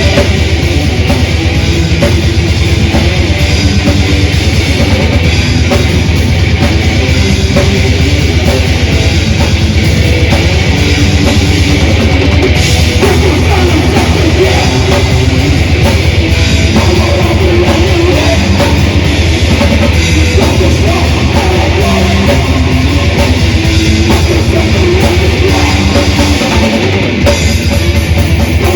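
A death/thrash metal band playing live: loud distorted electric guitars and bass over fast, dense drum-kit playing.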